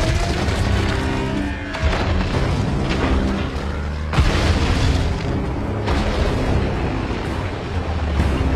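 Action-film soundtrack: explosions booming over a dramatic music score, with heavy blasts at the start and about two and four seconds in.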